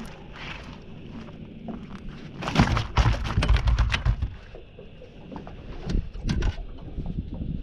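A flathead flapping on the measuring mat on the boat's floor: a fast run of slaps and thumps about two and a half seconds in, lasting about a second and a half, then a few more knocks about six seconds in.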